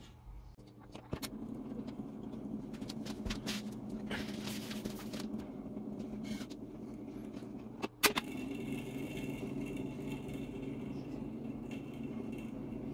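Old radio-gramophone running with a steady hum while its turntable is handled, with small clicks and knocks as the tone arm and a 7-inch single are moved. There is one sharp, loud click about eight seconds in.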